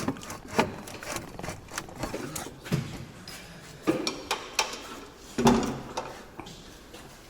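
Irregular metallic clinks, knocks and clanks of hand tools and engine parts being handled during engine disassembly, with a few heavier knocks about four and five and a half seconds in.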